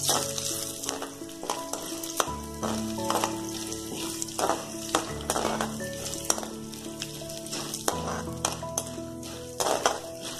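Urad dal and chana dal sizzling as they fry in oil in an aluminium kadai, while a metal spoon stirs them and clicks and scrapes against the pan again and again.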